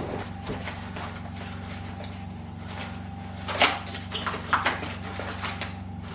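Handling and unpacking a boxed part: a few rustles and short knocks, the sharpest about three and a half seconds in, over a steady low hum.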